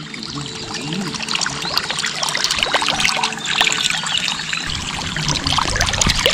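Water trickling and pouring, with a dense patter of small splashes. A few low, wavering tones sound over the first couple of seconds.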